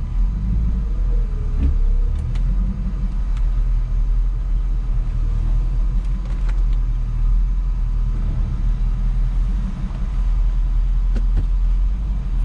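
2003 Infiniti M45 on the move, with a steady low rumble of engine and road noise.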